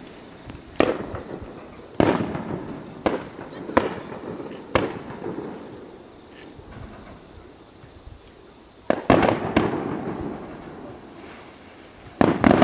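Aerial fireworks bursting: about nine sharp bangs, each trailing off in a rumbling echo, in two clusters with a pause of about four seconds between them.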